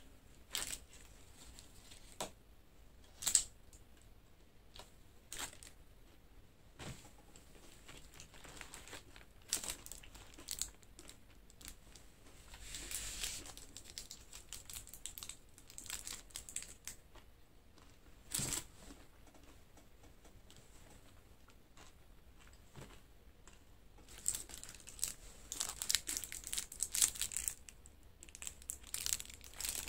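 Foil chocolate wrappers crinkling and tearing as individual chocolates are unwrapped by hand, in scattered short rustles and crackles, with a longer run of crinkling near the end.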